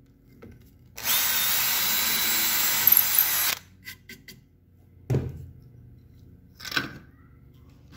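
Cordless drill running steadily for about two and a half seconds as its 1/8-inch bit bores a hole through the wooden side of a case, then stopping suddenly. A few light knocks follow.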